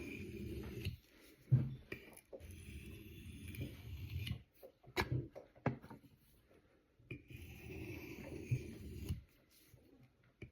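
Knife blade drawn across a natural sharpening stone: three long scraping strokes, with a few sharp clicks of steel on stone in the pause between the second and third strokes.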